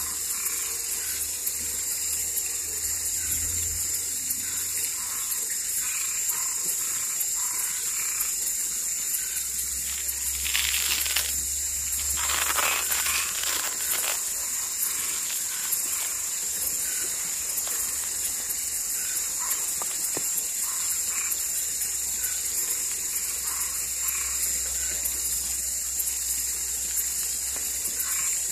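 Night chorus of frogs and tree frogs: many short calls scattered over a steady high-pitched chorus. About ten and twelve seconds in, a louder rushing noise passes twice.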